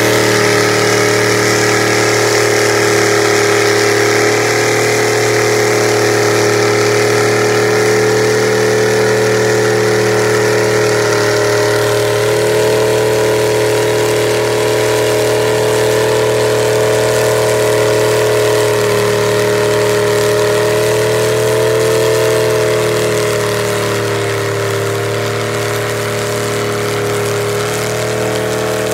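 Mud truck's engine held at steady high revs as it churns through a deep mud pit on oversized tires, the engine note sagging and wavering a little in the last third before picking up again near the end.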